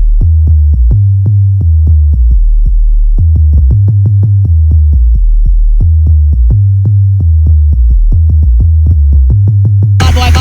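Jungle track: a deep sub-bass line from the Akai S1100 moving between notes under fast chopped 8-bit Amiga breakbeat drums that sound dull, with little top end. Near the end a bright full-range sample layer comes in over them.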